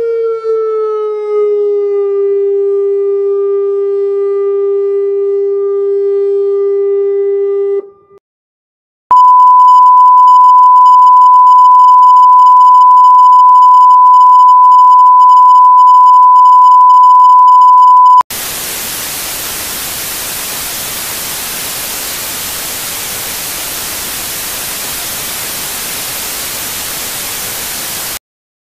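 A siren tone with overtones slides down in pitch, holds steady and cuts off about eight seconds in. After a second of silence, a loud steady 1 kHz test tone plays for about nine seconds. It then gives way to the hiss of off-air static for about ten seconds before cutting to silence: the sound of a TV station ending its transmission.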